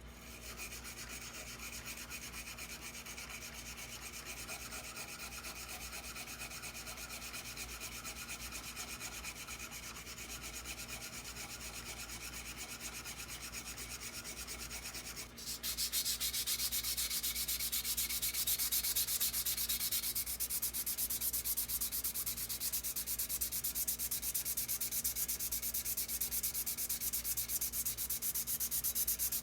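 Continuous sanding on an old Perfect Handle screwdriver, a steady scraping that gets louder and harsher about halfway through.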